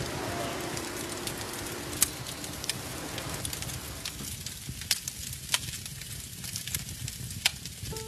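Campfire crackling: sharp, scattered pops over a low hiss, the hiss thinning about halfway through.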